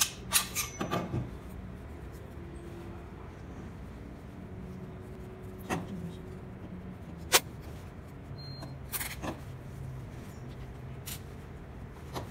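Scattered sharp clicks and knocks of a twist mop's plastic and steel handle parts being handled and fitted together. There is a quick cluster in the first second, then single clicks every second or two, over a low steady hum.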